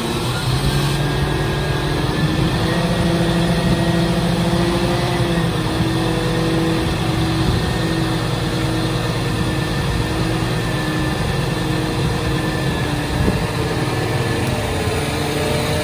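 Scania R480 truck's diesel engine running steadily while its hydraulics work the JOAB hooklift arm: a continuous engine drone with a steady whine over it, shifting slightly in pitch about five seconds in.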